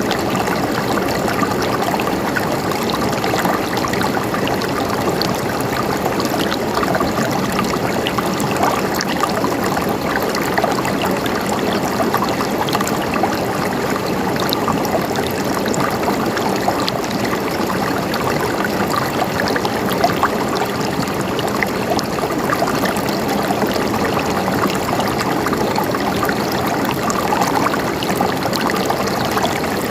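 River water flowing steadily over stones, a constant rushing with small splashes and trickles.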